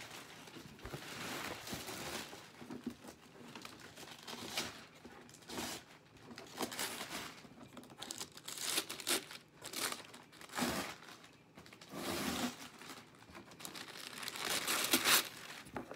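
Cardboard Amazon shipping box being opened and rummaged through: packaging crinkling and tearing in irregular rustles, in louder bursts toward the end.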